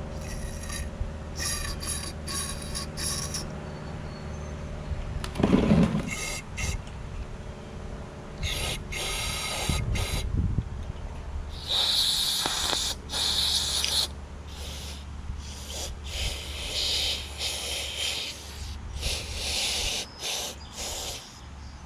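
Aerosol carburetor cleaner sprayed in repeated hissing bursts through a red straw into the passages and emulsion tube of a Kohler XT675 mower engine's carburetor, blowing out the dirt. There is a low steady hum underneath and a louder clunk about six seconds in.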